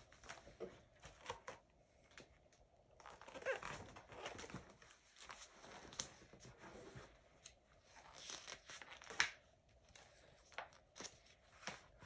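Faint rustling and soft taps of a picture book's paper pages being handled and turned, in a few short scattered bursts with one sharper snap about nine seconds in.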